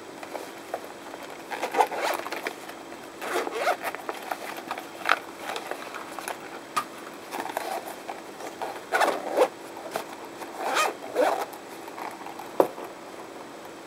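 Zipper of a foam-shell game controller pouch being worked in several short scratchy runs as the case is opened and closed around the controller, with one sharp click near the end.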